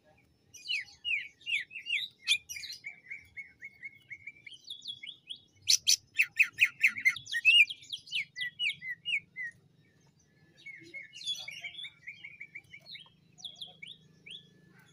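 Male greater green leafbird (cucak ijo) singing: fast runs of sharp chirps and rattling trills. The song is loudest about six seconds in, breaks off briefly around ten seconds, then starts again.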